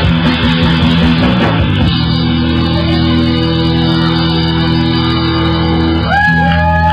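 Live rock band music with electric guitar: the drumming stops about two seconds in and a chord is held steadily, then a few bent notes rise, hold and fall over it near the end.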